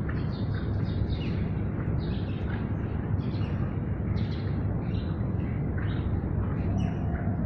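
Steady low outdoor rumble, with small birds chirping over it again and again.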